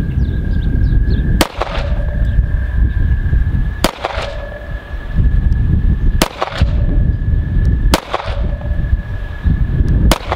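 Five slow, aimed shots from an Arsenal Strike One 9mm pistol, about two seconds apart. Heavy wind rumbles on the microphone between them.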